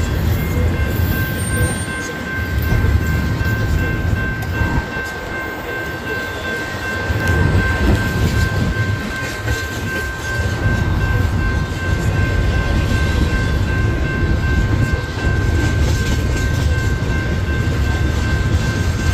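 Union Pacific intermodal train's double-stack container well cars rolling past at a grade crossing: a continuous rumble and clatter of wheels on rail. A steady high-pitched tone runs over it.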